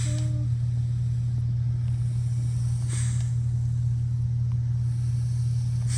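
A steady low hum, with a brief faint hiss about three seconds in.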